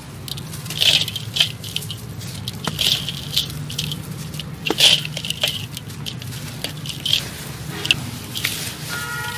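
Hands crumbling dry, dusty clay lumps in a steel basin: irregular crunches and gritty crackling as the lumps break apart, about a dozen distinct crunches. A steady low hum runs underneath.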